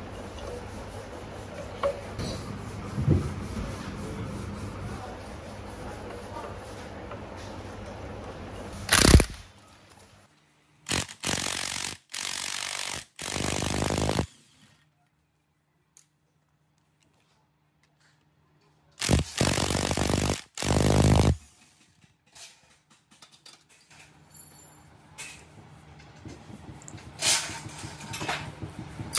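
Cordless impact wrench hammering loose the cylinder-head nuts of an RT140 diesel engine, in several short bursts of about a second each. A sharp knock comes about nine seconds in, and light clinks of nuts and tools follow near the end.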